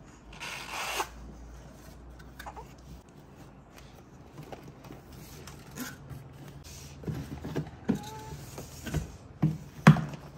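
Box and packaging being handled during an unboxing: a short rustling rush about half a second in, then scattered taps, clicks and knocks that grow more frequent and louder near the end.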